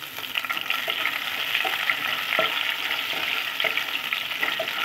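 Sliced green chillies, curry leaves and mustard and fennel seeds frying in hot oil in a nonstick pan, a steady sizzle with small crackles, stirred with a wooden spatula.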